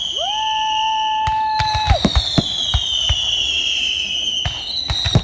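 Fireworks going off: long whistling fireworks that slowly fall in pitch, overlapping one another, and a lower whistle that rises then holds steady for about a second and a half near the start. Sharp bangs are scattered through, bunched around two seconds in and again near the end.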